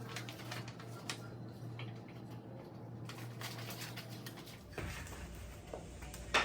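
Light scattered clicks and taps of small wooden birdhouse-kit pieces being handled on a table, over a steady low room hum, with one sharper click near the end.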